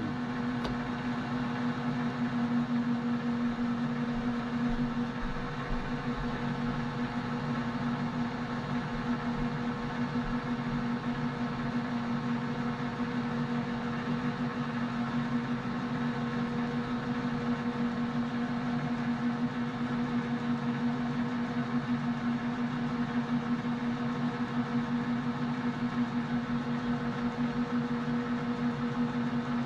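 Metal lathe running steadily with the carriage power feed engaged while knurling brass bar stock: a constant mechanical hum with a strong steady low tone.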